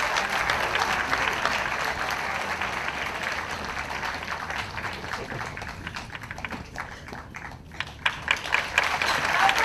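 Crowd applauding. The clapping thins and fades about six seconds in, then a few louder scattered claps come near the end.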